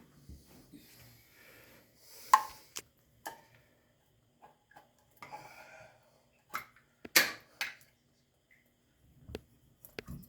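Handling noises of small hard objects: a string of separate clicks and knocks with brief rustling between, the two loudest knocks about 2 and 7 seconds in.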